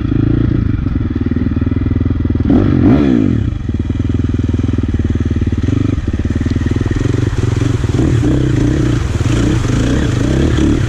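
Four-stroke enduro dirt bike engine running on a rocky trail, with a quick rev up and back down about three seconds in.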